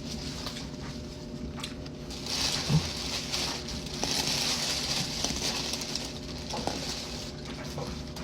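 Eating sounds: chewing a chicken burrito, with two spells of rustling in the middle.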